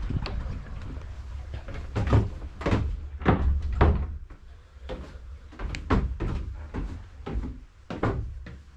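A run of irregular knocks and thumps, about a dozen over several seconds, the loudest between two and four seconds in.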